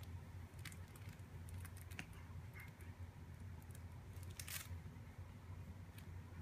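Quiet room with a low steady hum, and faint scattered clicks and rustles of the play gym's hanging fabric toys being handled, with one louder rustle about four and a half seconds in.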